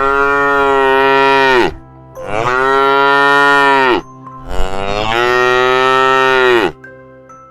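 Cow mooing three times, each moo a long call of about two seconds that drops in pitch as it ends.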